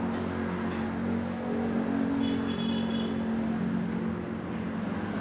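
Street traffic with a vehicle engine running steadily close by, giving a continuous low hum over a general street din.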